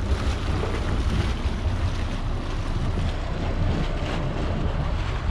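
Wind buffeting the microphone, a steady low rumble with a hiss over it.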